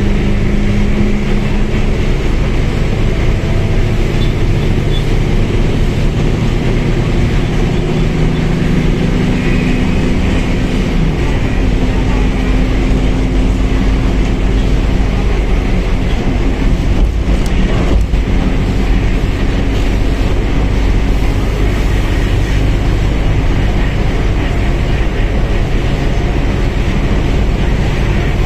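Mercedes-Benz OF1721L bus running on the move: a steady diesel engine and drivetrain rumble whose pitch drifts slowly up and down as the engine speed changes, with a brief break about two-thirds of the way through.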